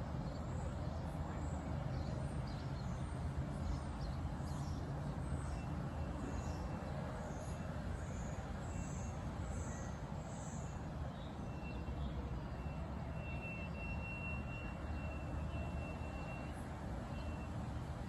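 Backyard songbirds chirping: a run of high chirps in the first half, then a thin, high, held note repeated in the later part, over a steady low background rumble.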